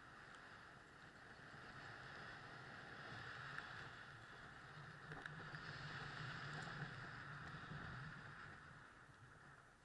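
Faint steady hiss of skis sliding over packed snow, swelling in the middle and fading near the end.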